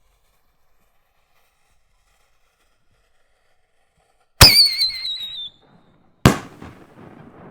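A 6-inch single-break canister shell firing. A sharp bang about four seconds in is followed by a whistle that falls slightly in pitch for about a second. About two seconds after the first, a second bang follows with a long rumbling echo.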